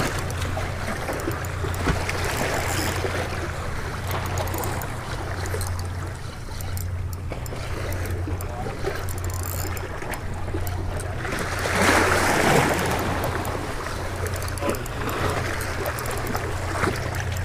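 Sea washing against a rock jetty with wind on the microphone: a steady rushing noise, with a louder surge of water about twelve seconds in.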